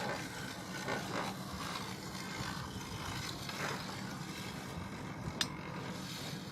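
Small plastic toy parts and packaging being handled, with light scraping and rattling and one sharp click about five seconds in, over a steady low hum.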